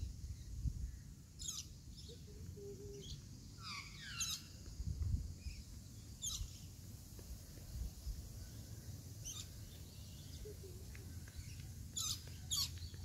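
Birds calling with short, sharp chirps that sweep downward in pitch, one every few seconds and a quick pair near the end, over a low rumble of wind on the microphone.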